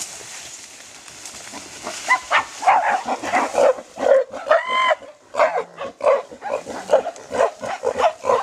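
Mountain gorillas giving a rapid series of short, loud calls, starting about two seconds in, with one longer call that rises in pitch near the middle.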